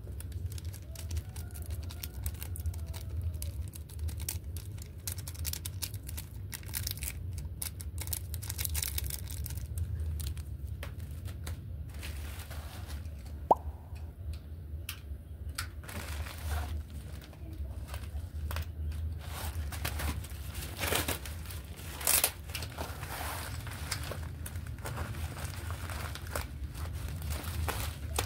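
Plastic mailer bag being handled and opened: crinkling, rustling and tearing with scattered clicks and taps, and one sharp tick about halfway through, over a steady low hum.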